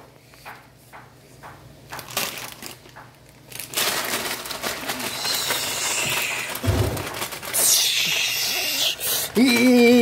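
Rustling and rubbing right at the microphone as the phone presses into a husky puppy's fur, starting a few seconds in and running loud for several seconds. It ends in a short, steady, slightly wavering hum about a second long.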